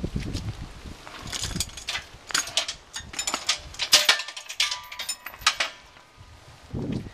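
Trailer hitch hardware being handled by hand: a run of sharp metal clinks and knocks, with a short ringing clink about four seconds in.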